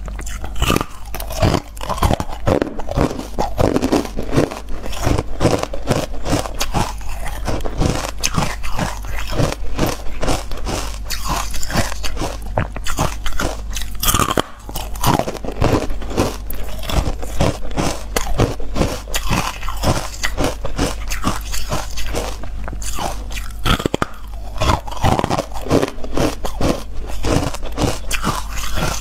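Close-miked crunching and chewing of carbonated ice: dense, continuous cracking of frosty ice blocks bitten and ground between the teeth, over a steady low hum.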